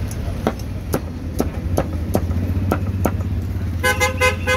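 Steady low rumble of street traffic or an engine, with a run of sharp knocks about two a second, then four quick pulses of a pitched tone near the end.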